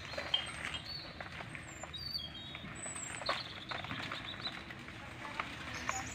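Birds chirping in short high calls, with a few sharp chops of a blade into a banana plant, the clearest about a third of a second in and about three seconds in.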